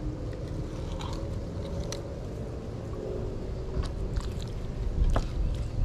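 Fillet knife scraping and ticking faintly against a cero mackerel's flesh and the cleaning board during filleting, with a sharper tap about five seconds in, over a steady low rumble.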